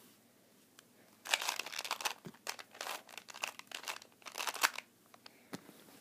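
2x2 Rubik's cube being turned fast, its plastic layers clicking and rattling in three quick runs of turns about a second long each, after a quiet first second: the cube is being scrambled.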